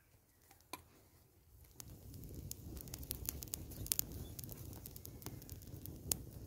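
Small campfire of dry twigs and leaves catching and crackling: sharp snapping pops scattered over a low rush that rises about two seconds in.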